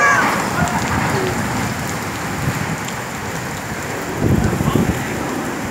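Heavy rain pouring down in a windstorm, a steady hiss, with a louder low rush about four seconds in.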